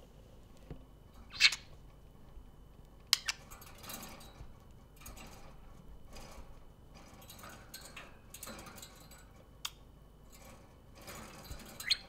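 Budgerigars making short chirps and scratchy chatter, broken up by a few sharp clicks. The loudest is a chirp about a second and a half in.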